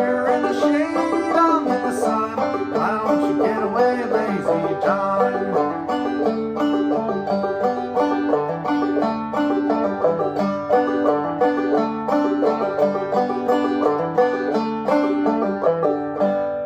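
Gold Tone CC-Carlin12 five-string banjo played clawhammer style: a steady, rhythmic stream of plucked notes. Near the end the playing stops and the last notes ring out and fade.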